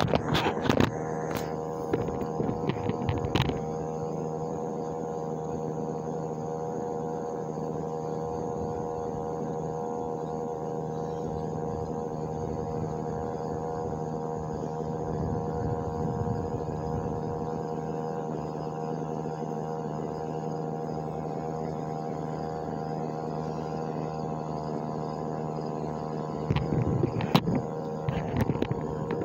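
Steady electrical or machine hum made of several unchanging tones, with clusters of clicks and knocks in the first few seconds and again near the end.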